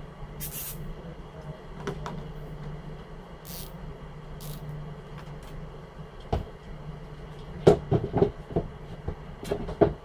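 Steady low hum with a few brief rustles, then a string of sharp knocks and clicks in the last few seconds: tools being handled and picked up.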